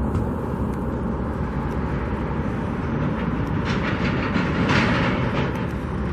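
Steady low rumble of passing vehicle traffic, with a brief hiss from about four seconds in.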